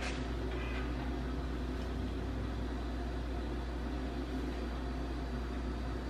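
Steady low hum with a faint even hiss.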